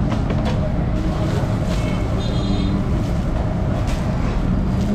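Busy street noise: a steady rumble of traffic with faint voices in the background.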